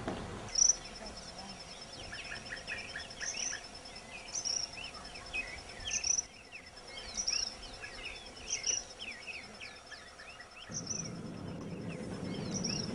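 Insects trilling in a steady high pitch, with sharper chirps every second or two and many short chirping calls over them. A low background noise comes in near the end.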